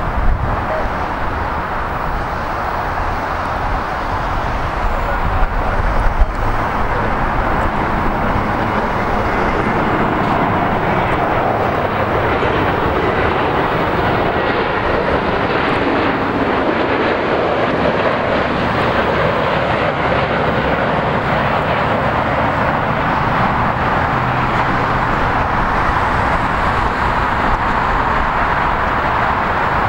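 Airbus A321neo jet airliner on final approach with its landing gear down. Its engines make a loud, steady rushing sound as it flies past low to land.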